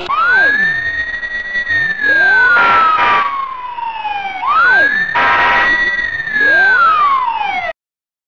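Wailing fire engine siren sound effect: the tone rises quickly, holds high and slides slowly down, twice, with echoing copies of the sweep layered over it. Two short noisy blasts sound over it, about two and a half and five seconds in, and it cuts off suddenly shortly before the end.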